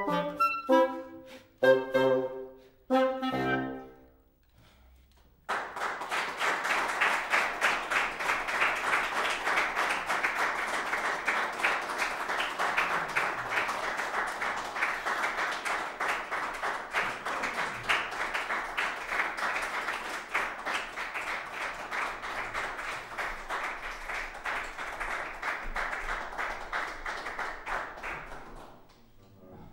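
A clarinet and a bassoon end a piece on a few short final chords that ring out and die away. After a brief quiet, an audience applauds steadily for over twenty seconds, trailing off near the end.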